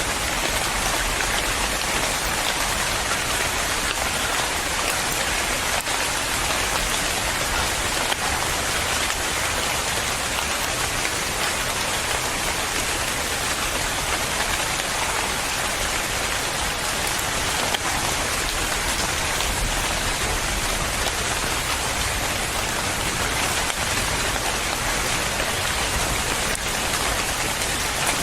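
Steady rain falling and pattering on a surface, an even continuous hiss of drops with no breaks.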